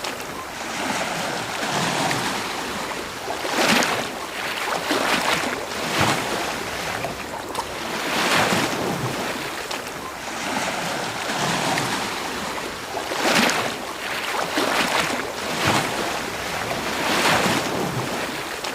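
Ocean waves breaking and washing on a beach, a steady hiss of surf that swells with each wave every second or two.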